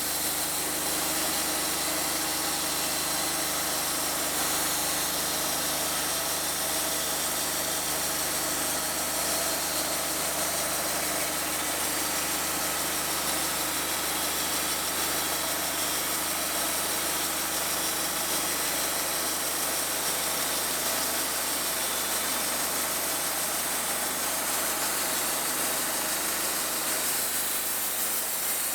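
Portable band sawmill running steadily, its engine and band blade sawing through a log with a dense, even hiss over the engine note.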